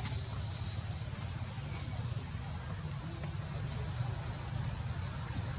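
Outdoor background noise: a steady low rumble, with a few faint high-pitched chirps in the first couple of seconds.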